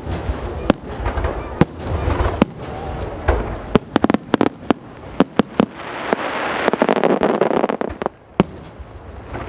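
Aerial fireworks bursting: single sharp bangs every second or so, then a quick run of reports, then a dense hissing crackle lasting about two seconds, and one more bang near the end.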